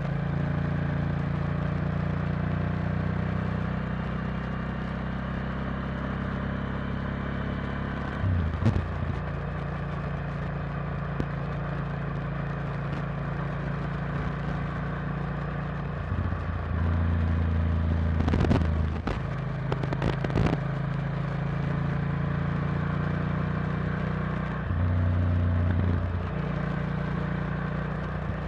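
Honda Varadero XL1000's 996 cc V-twin engine running steadily under way, heard from the bike with a rush of wind and road noise. Its pitch and loudness step up or down a few times as throttle and gear change, with a few sharp clicks about two-thirds of the way through.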